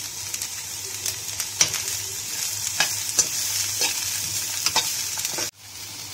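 Chopped mixed vegetables sizzling in hot oil in a kadhai while a metal spatula stirs them, with a sharp scrape or tap on the pan every second or so. The sound drops off abruptly near the end, and a quieter sizzle goes on.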